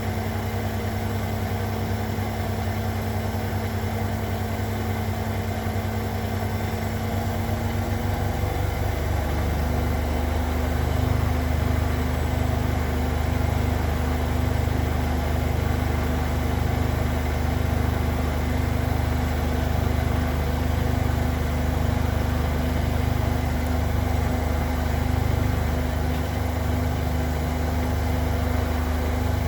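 Zanker EFX 4875 washing machine in its final spin, set to 1800 rpm: a steady motor whine and drum hum. About eight seconds in, the pitch steps up slightly and it gets a little louder as the drum speeds up, and the low hum then pulses evenly about once a second.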